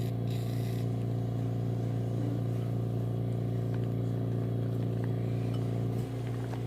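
A steady low machine hum, even in pitch, with a short dip about six seconds in and a few faint ticks over it.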